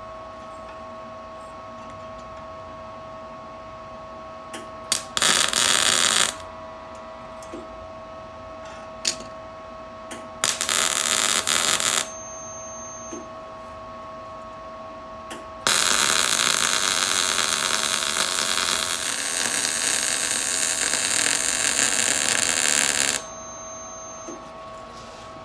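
MIG welder arcing on thin-gauge steel exhaust pipe: a short burst of welding crackle about five seconds in, another about ten seconds in, then a longer bead of about seven seconds. A steady hum runs underneath.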